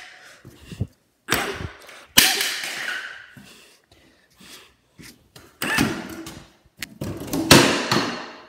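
A claw hammer banging down on a concrete floor: about five hard, irregular knocks, each trailing off after the hit.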